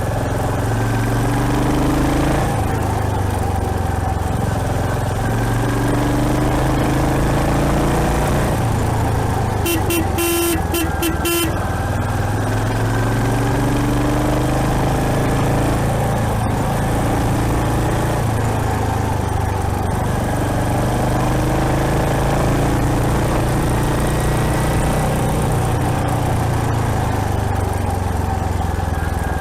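Royal Enfield Hunter 350's single-cylinder engine running under way, its revs rising and falling. About ten seconds in, a horn sounds in a quick run of short toots.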